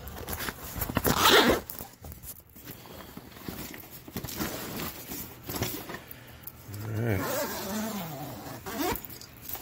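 Zipper on a padded nylon tripod carrying bag being pulled open along its length, with the bag's fabric rustling. The loudest zip comes about a second in.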